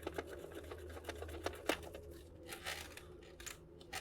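Screws being backed out of a boombox's plastic case with a screwdriver to free the brass antenna. A low steady whir for about the first two seconds, then scattered light clicks and ticks of the screws and plastic.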